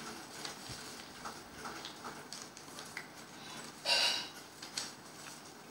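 A sheet of paper being folded and creased by hand: soft rustles and small ticks, with a louder crinkle about four seconds in.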